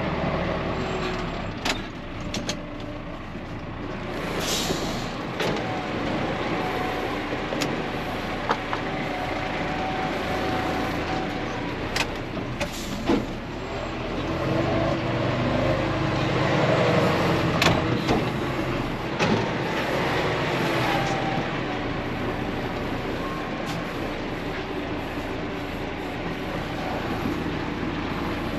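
John Deere 6430 tractor engine running steadily at low revs, a little louder for several seconds in the middle, with scattered sharp clanks and knocks and a short hiss about four seconds in.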